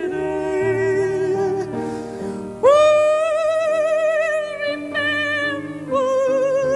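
An operatic falsetto voice sings a romantic ballad to grand piano accompaniment. The voice holds a long note with vibrato, then about two and a half seconds in leaps loudly to a high note held with a wide vibrato, with a brief break near the end.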